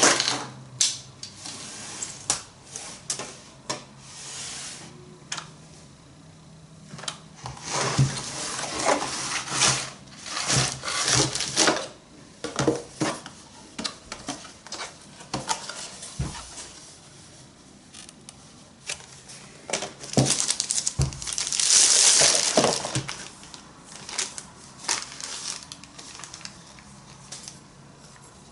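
Objects being handled at close range: irregular clicks, knocks and rustling, with a longer, louder rustle about two-thirds of the way through.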